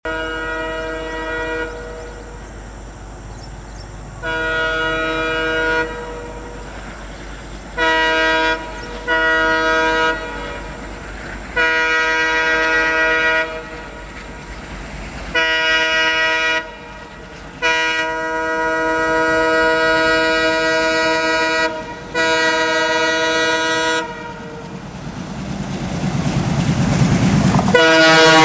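WDG3A diesel locomotive's horn blowing again and again, about eight blasts in all, some short and some held for several seconds. In the last few seconds the rumble of the approaching train swells until it is loud.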